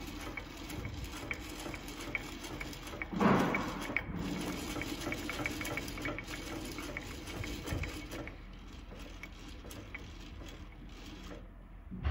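Rise-and-fall mechanism of a planer thicknesser's table being cranked by its handwheel: light mechanical ticks about three a second as the wheel turns, with a louder knock about three seconds in. The ticking thins out in the last few seconds as the winding slows near the target height.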